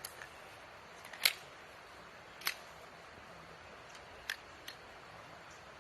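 Canik SPX Rival 9mm pistol firing slow, single aimed shots: sharp cracks spaced one to two seconds apart, the loudest about a second in, with fainter clicks between.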